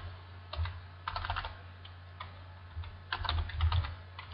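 Computer keyboard keystrokes in a few short bursts as a word is typed, over a faint, steady low hum.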